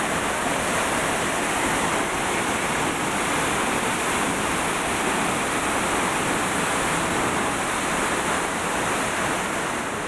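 La Fortuna waterfall's tall single drop plunging into its pool: a steady, loud, unbroken rush of falling water.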